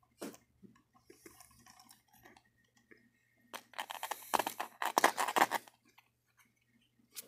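Small plastic clicks and taps from a model train hopper car being handled and pried at, then a louder, dense run of scraping and crinkling clicks from about three and a half to almost six seconds in.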